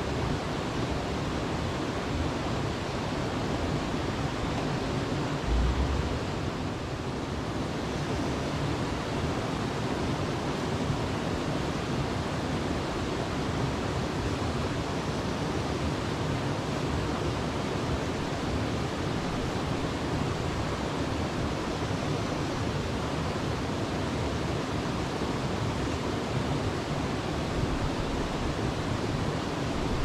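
Mountain creek water running over rocks, a steady even rush with no let-up. About five and a half seconds in there is a brief low thump.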